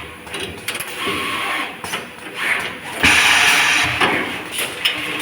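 Automatic wire-harness lug crimping machine running: irregular mechanical clacks and short bursts of noise, with a louder rush of noise lasting about a second near the middle.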